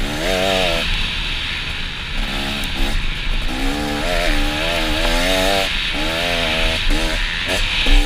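Motocross bike engine revving hard, its pitch climbing and dropping back several times as the throttle is opened and closed, over a steady rushing noise.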